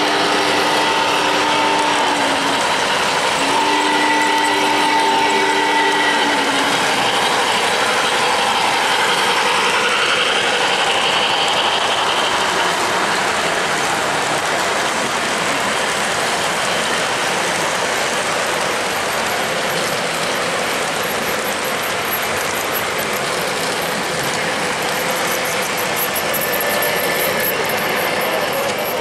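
O-gauge model trains running on three-rail track: a steady rattle and whir of small wheels and gear-driven motors. In the first six seconds a sound-equipped model locomotive's whistle gives two long blasts.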